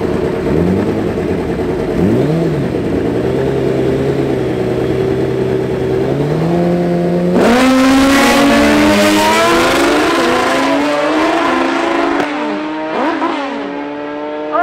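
Several drag-racing engines idling, with throttle blips that step and glide in pitch. From about seven seconds in, louder revving joins them.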